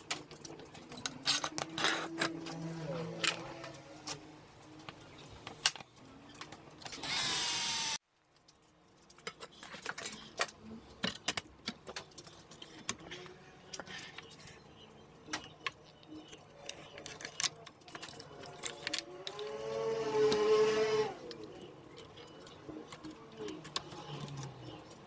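Scattered clicks and knocks of metal and wood parts being handled as a circular saw is fitted to its base plate and set on a crosscut station; the saw's motor is not running. A few short pitched sounds, the loudest about 20 seconds in, and a sudden dropout to silence about 8 seconds in.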